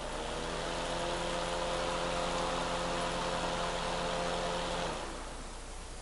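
Electric space heater's fan motor running with a steady hum and a rush of air. It comes up to speed at the start, then winds down and stops about five seconds in.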